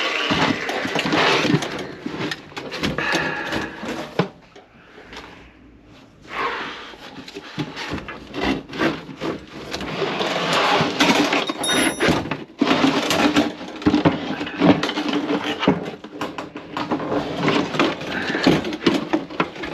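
Irregular knocks, clanks and scraping from hands-on work at a kitchen drain, with quieter gaps.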